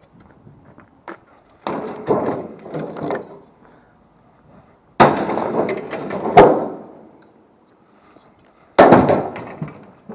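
Scrap metal being thrown and loaded: three separate clattering crashes, the loudest about five and six and a half seconds in.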